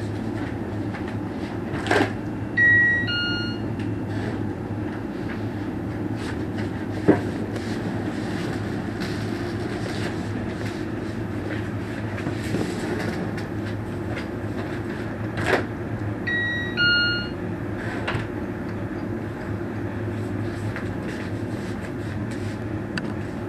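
A two-note 'ding-dong' doorbell chime, a higher tone falling to a lower one. It sounds twice, about 14 seconds apart, each time just after a sharp click. Underneath is a steady low rumble with occasional clicks.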